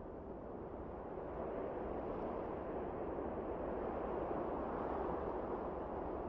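Campfire of dry brushwood burning with a steady rushing noise that grows a little louder about a second and a half in.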